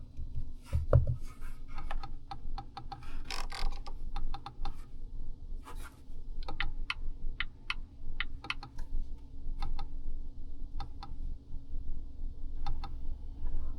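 A run of light, irregular clicks and taps, sometimes in quick pairs, over a low steady rumble, with a dull thump about a second in.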